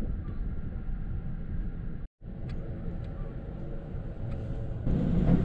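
Amtrak Auto Train passenger car running along the rails at speed, heard from inside as a steady low rumble. The sound drops out for a moment about two seconds in and gets louder near the end.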